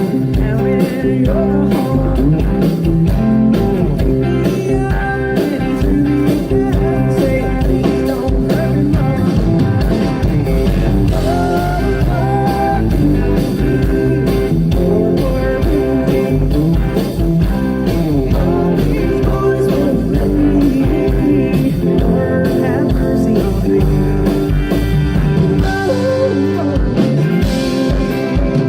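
Live country-rock band music with guitar and singing over a steady beat.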